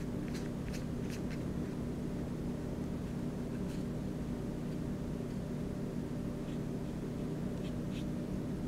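A paintbrush stroking on paper, a few short, light scratchy strokes, over a steady low hum.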